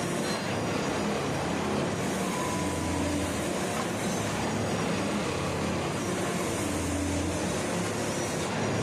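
Railway ballast tamping machine working, a steady loud machinery noise. A low drone swells for a second or so, twice.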